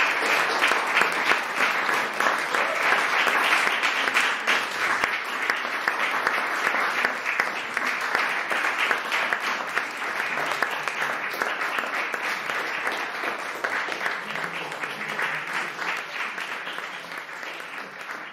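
Audience applauding: many hands clapping, strong at first and slowly dying away toward the end.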